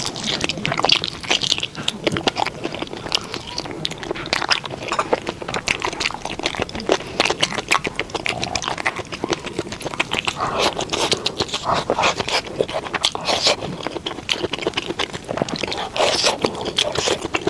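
Close-miked eating: chewing and crunching with dense wet clicks and smacks of the mouth.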